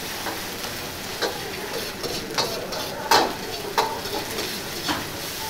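Aromatics (pickled takana greens, fermented bean curd, chili pastes and ginger) sizzling in scallion oil in a wok while a metal ladle stirs them. The ladle scrapes the pan and gives several sharp clinks against the wok, the loudest about three seconds in. This is the stir-frying that brings out their fragrance.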